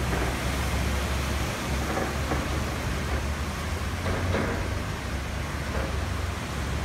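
Rain falling on a flooded street: an even, steady hiss over a constant low rumble.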